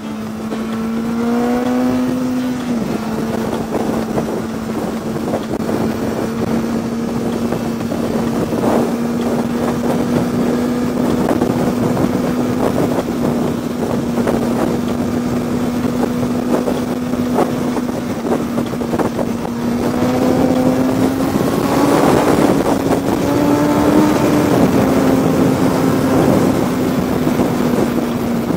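Sport motorcycle engine running at highway speed under a steady rush of wind on the microphone. Its pitch climbs in the first couple of seconds and drops back near three seconds in, holds steady, then rises again about twenty seconds in as the bike accelerates, and eases off near twenty-five seconds.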